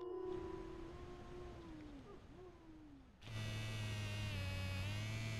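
A drawn-out howl slides down in pitch and fades. About three seconds in, a steady buzz starts suddenly and holds.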